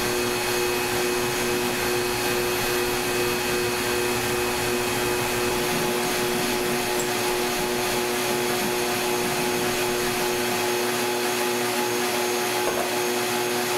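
Shop vacuum running with a steady hum, its hose held at the saw cut to draw off drywall dust.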